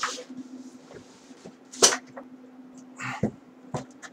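Cardboard packaging of a graphics card being handled as the inner box is worked out of the outer box: a sharp, short scrape about two seconds in, then shorter rustles and a click near the end, over a low steady hum.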